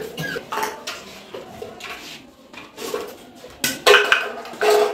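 Empty metal cans and plastic bottles clattering and knocking as they are picked up and dropped into plastic bags and bins, with the loudest clanks about four seconds in.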